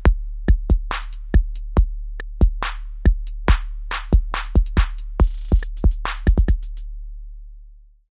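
Electronic background music: a drum-machine beat over a steady deep bass note. The drums stop about seven seconds in and the bass note fades out just after.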